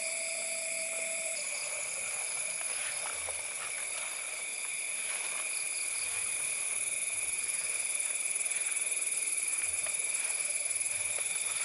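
Chorus of night insects trilling steadily on several high pitches at once, with a few faint clicks.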